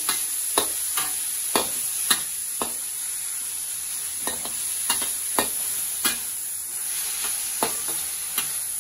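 Chopped vegetables sizzling in hot oil in a stainless-steel wok, with a steady high hiss, while a metal ladle stirs them, clinking and scraping against the pan about a dozen times at irregular intervals.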